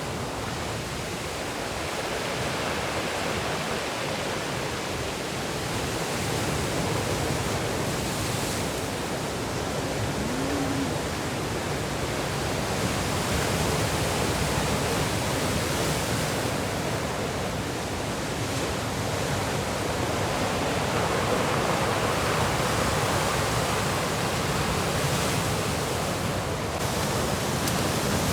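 Rough sea: waves breaking and washing in a continuous noise that swells and eases slowly.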